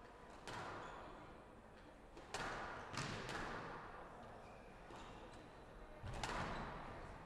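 Squash rally: the ball cracks off rackets and the court walls in about five sharp, echoing hits, the loudest near the middle and one more about a second before the end. The hits ring in a large hall.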